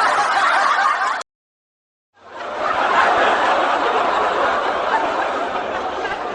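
Laughter, edited in as two stretches. The first cuts off abruptly about a second in. After a second of dead silence, a longer stretch of laughter swells in and fades out near the end.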